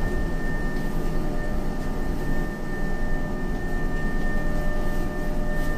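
Meitetsu 1200 series electric train running, heard inside the passenger car: a steady low rumble of wheels on rail with a thin, steady high whine above it.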